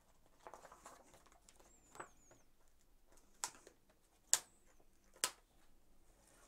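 Quiet handling of a Blu-ray steelbook and its paper insert sheet: soft paper rustling, then four sharp clicks and taps as the sheet is lifted off and the metal case is handled on a wooden table. The loudest tap comes a little past the middle.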